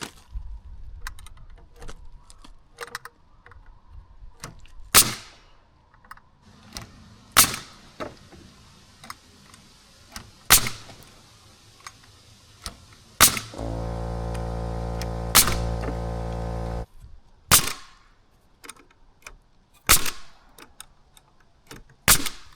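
Nail gun driving nails into 2x6 framing lumber: about eight sharp shots, one every two and a half seconds or so, with lighter clicks and knocks between them. Near the middle a motor runs steadily for about three seconds.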